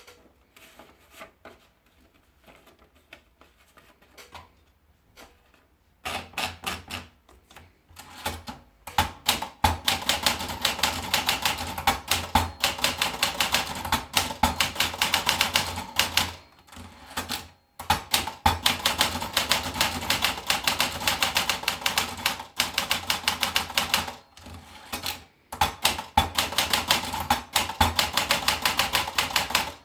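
Olympia Splendid 33 portable manual typewriter being typed on. A few faint clicks come first. Then rapid runs of keystrokes and typebar strikes start a few seconds in, broken by two short pauses.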